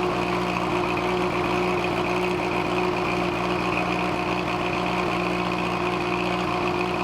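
An engine running steadily, with a constant high whine above its hum.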